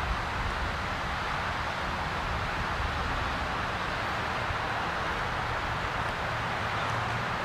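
Steady outdoor background noise: an even rushing hiss over a low rumble, with no distinct events.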